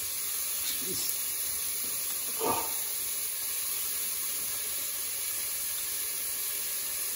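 Onions, shallot and rosemary frying in oil in a stainless steel pot, with a steady, even sizzle.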